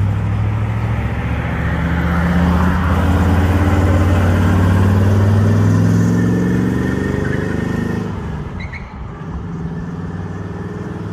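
1969 Chevrolet Corvette's 350 cubic-inch small-block V8 pulling away and accelerating, its revs climbing from about two to six seconds in. The sound then fades as the car drives off into the distance, about eight seconds in.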